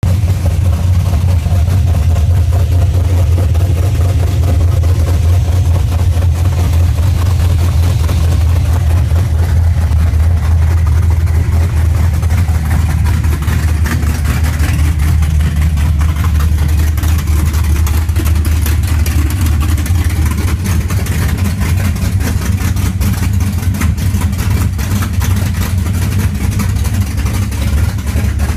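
Dodge pickup's V8-type engine fitted with an aggressive RattleSnake performance cam, CNC heads and a full exhaust, idling steadily and loud with a choppy, lumpy idle where the individual firings can be counted off.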